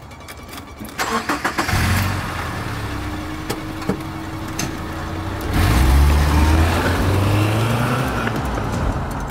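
A car engine is cranked with a quick stutter of starter clicks about a second in, catches and runs steadily, then is revved up about halfway through, its pitch rising before holding.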